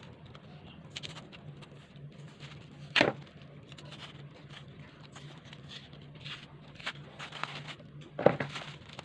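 Knife cutting and scraping the skin off cassava roots: scattered scrapes and clicks, with two sharp knocks about three seconds in and near the end.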